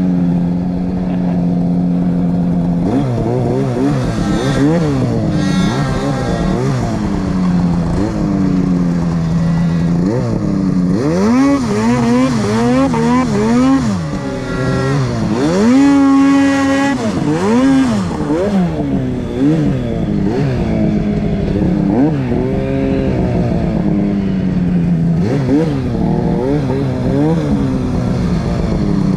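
Two-stroke mountain snowmobile engine heard from on board, revved up and down over and over as the rider blips the throttle through deep powder. The pitch holds fairly steady for the first few seconds, then climbs and falls every second or so, with the hardest rev about halfway through.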